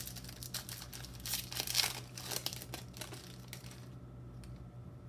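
Foil wrapper of a Topps baseball card pack crinkling and tearing as the pack is opened, with the crackling loudest between one and two seconds in and dying down after about three and a half seconds. A steady low hum runs underneath.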